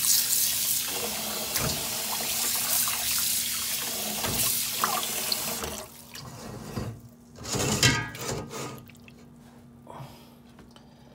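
Kitchen tap running into a pot of water as fish pieces are rinsed by hand under the stream. The tap is shut off about six seconds in, leaving only a few brief noises.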